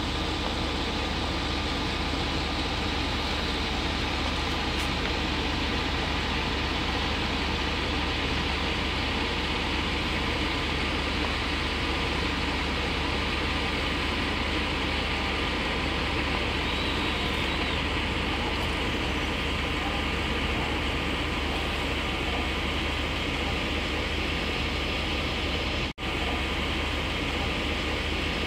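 Steady outdoor background noise, a constant rumble with a faint steady hum, that drops out for an instant near the end.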